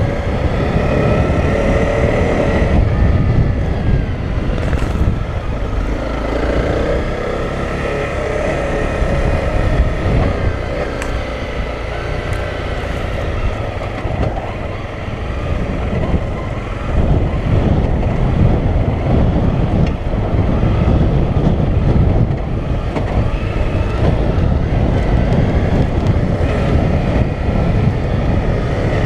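Honda CRF250L's single-cylinder four-stroke engine running at varying throttle on a rough dirt track, with heavy rumble and wind on the helmet-mounted microphone. The engine eases off about halfway through and picks back up a few seconds later.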